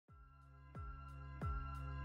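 Background music fading in: a deep kick drum about every two-thirds of a second under held, sustained chords, getting steadily louder.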